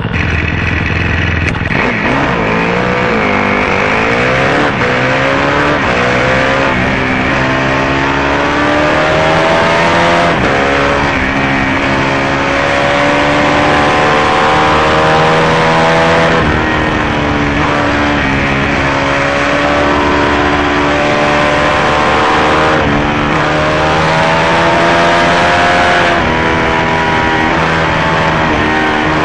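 Sport motorcycle's engine, heard from a camera mounted at the rear exhaust: steady at idle for the first couple of seconds, then pulling away and accelerating up the road, its pitch climbing and falling back several times.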